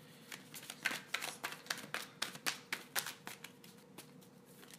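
A deck of oracle cards being shuffled by hand: a quick run of light clicks, thinning out near the end.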